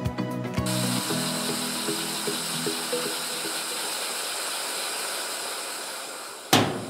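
Wooden model steam engine kit running on compressed air: a steady hiss of air driving the piston and escaping through the valve, with music fading out over the first few seconds. A sharp knock comes near the end, and the hiss then dies away.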